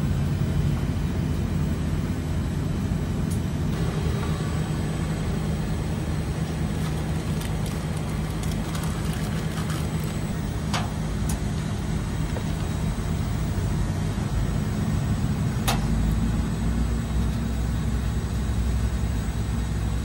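Steady low mechanical hum with a few sharp clicks and taps as thermistor wires and a connector are handled at an air-conditioner's control board.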